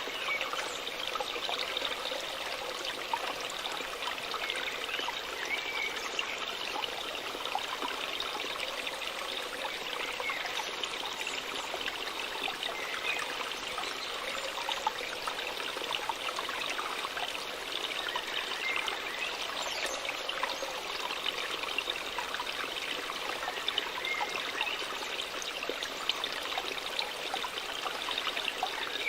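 Waterfall water splashing and trickling steadily.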